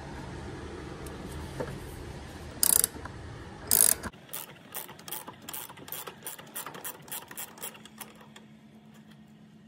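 Ratchet clicking as it spins the strut-top nut off a BMW M2's front strut. There are two short, loud rasps about three and four seconds in, then a run of separate clicks, about three a second, that stops near the end. A low background rumble cuts off about four seconds in.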